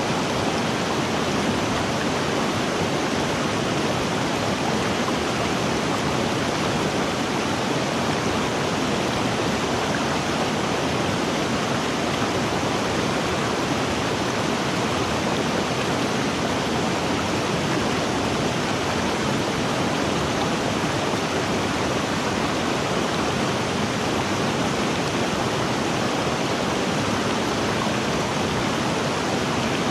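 River water flowing, a steady, even rush that does not change.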